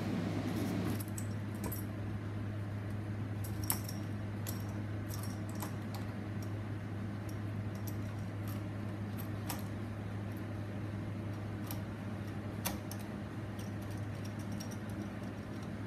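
Scattered light metallic clicks and clinks as the nanomixer's stainless steel cell and clamp are handled, over a steady low machine hum. A louder rushing layer in the hum stops about a second in.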